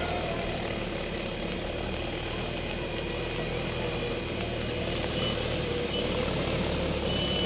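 Steady hiss of heavy rain mixed with the low hum of vehicle engines.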